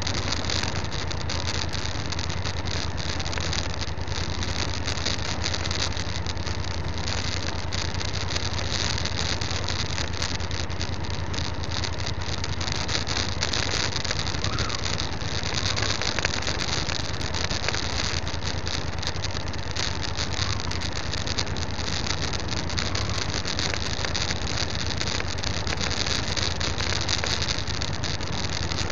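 Motorcycle riding along a rough gravel track: the engine runs steadily under a constant hiss of wind and road noise, with many small rattles and knocks from the rough surface.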